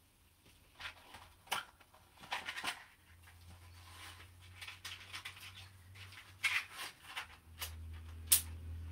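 Matchbox being handled, with scattered scrapes and clicks, then a match struck sharply along the side of the box about eight seconds in.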